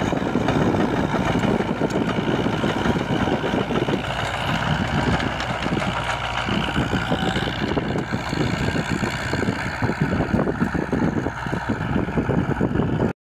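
Crawler-tracked tractors' diesel engines running under load as their rear rotary tillers churn dry soil: a steady, loud engine drone mixed with the rushing of the tilled earth, cutting off suddenly near the end.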